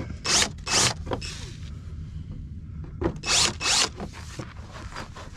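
Cordless drill enlarging pilot holes in a plastic front bumper cover with short trigger pulls: two brief bursts of the bit cutting in within the first second, and two more about three seconds in.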